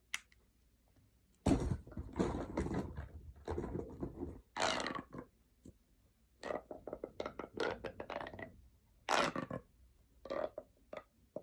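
Handling noise: scraping and rustling, with a run of quick sharp clicks in the middle and another scrape near the end.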